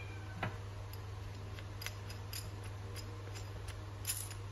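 Scattered light clicks and taps of a Snap-on puller's metal bars being fitted together by hand, over a steady low hum.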